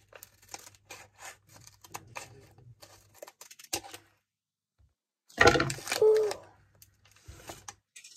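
Scissors snipping through a small crinkly foil wrapper in a string of short clicks and crinkles, then a louder burst of crinkling and tearing about five seconds in as the packet is pulled open.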